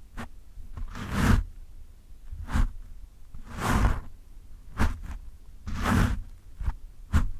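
Fingertips scratching and rubbing the foam windscreen of a microphone in rough strokes about once a second, longer scratches alternating with short sharp ones, each with a deep rumble from the foam pressed against the mic.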